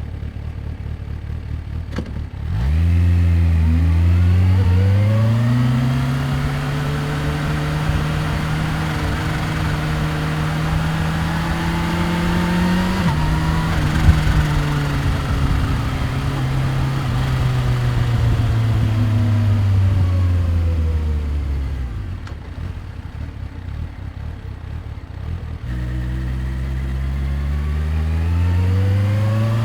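Supercharged 998 cc inline-four of a 2015 Kawasaki Ninja H2 on the road. It idles at first, then pulls away about two and a half seconds in with rising engine pitch and holds a steady speed. It winds down for about six seconds, runs low and quieter for a few seconds, then accelerates again near the end.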